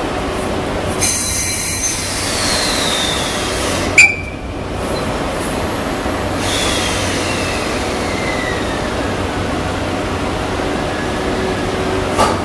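EF81 electric locomotive at a platform over a steady hum, with drawn-out wheel squeals that fall slowly in pitch. A single sharp, loud clank comes about four seconds in and a smaller one near the end.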